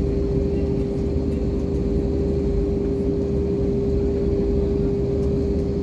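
Airbus A320 cabin noise in flight: a steady low jet-engine and airflow rumble with one constant hum tone over it.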